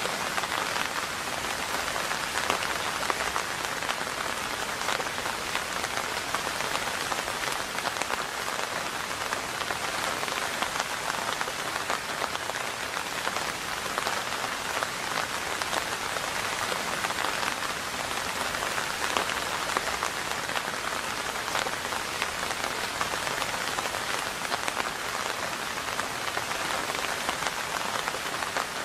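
Steady rain falling: an even hiss dense with small individual drop hits.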